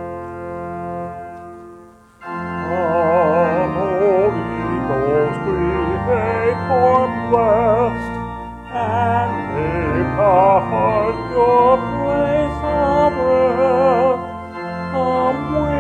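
Church organ holding a chord that fades out, then after a brief pause voices begin singing a hymn with vibrato, accompanied by the organ.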